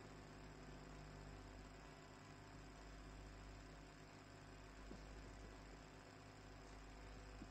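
Near silence with a steady electrical mains hum and faint hiss.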